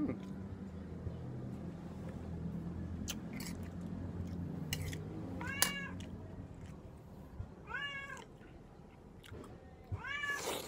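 A domestic cat meowing three times, about two seconds apart, each call rising and then falling in pitch.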